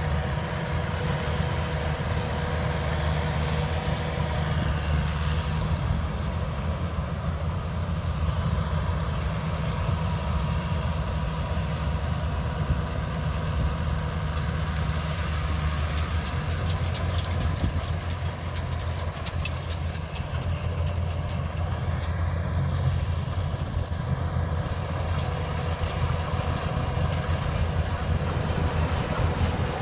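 Yanmar AW82V rice combine harvester's engine running steadily as the machine works the field: a low, even drone that shifts slightly about halfway through, an engine note described as quiet.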